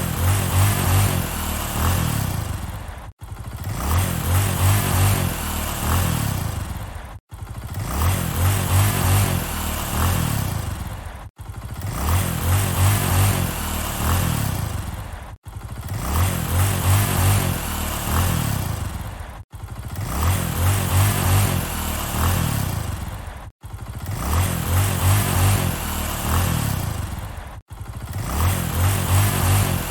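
Motorcycle engine revving up and dropping back, the same short stretch of about four seconds repeated over and over, with an abrupt cut each time it starts again.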